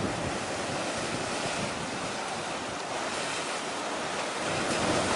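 Wind buffeting the microphone over the rushing of choppy sea. A steady noise that grows a little louder near the end.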